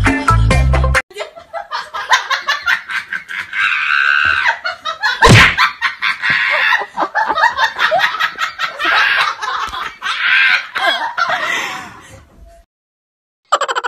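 Music for about the first second, then people laughing and talking in quick, choppy bursts, with one loud outburst about five seconds in.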